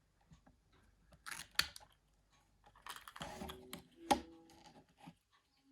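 Small plastic phone parts of a Nokia 9300i being handled and worked loose: a scrape and a sharp click about one and a half seconds in, then longer scraping ending in another sharp click about four seconds in.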